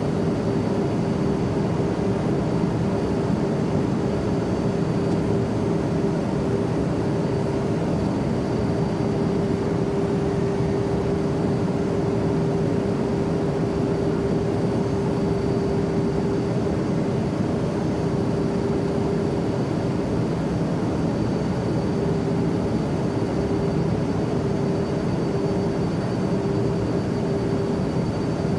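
Steady airplane noise used as white noise: an even rush of engine and air sound with a constant hum running through it, unchanging throughout.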